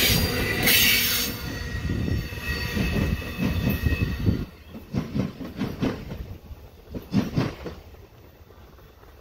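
Amtrak Superliner bilevel passenger cars rolling past close by, the wheels squealing in loud high screeches with steady whining tones. About four and a half seconds in it drops to a clickety-clack of wheels over the rail joints, fading as the last car pulls away.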